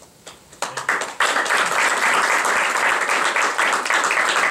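Audience applauding: a few scattered claps in the first second build into steady applause.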